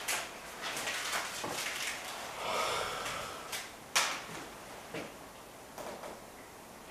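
Masking tape being peeled off a freshly painted fiberglass nose cone: short rips and crackles, a longer screechy tearing pull about two and a half seconds in, and a sharp snap near four seconds as a strip comes free.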